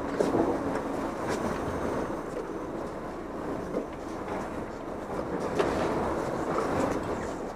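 Sportfishing boat running at sea: a steady rush of engine, water and wind noise, with a few short knocks and rattles now and then.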